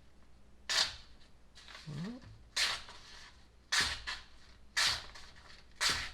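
Pocket knife blade slicing through a sheet of paper: five quick, crisp cuts about a second apart.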